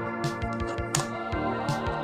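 Background music with a steady beat, drum hits and sustained keyboard-like chords, with a cymbal crash about a second in.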